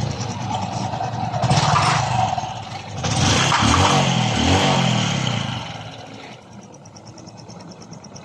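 Honda motorcycle engine, freshly rebored and reassembled, running with its exhaust refitted: blipped up several times, then settling to a quieter idle about six seconds in. It runs with a brand-new sound, the piston slap cured.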